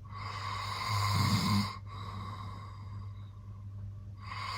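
A man snoring loudly. One snore swells over about a second and a half and breaks off, followed by a quieter stretch, and the next snore begins near the end.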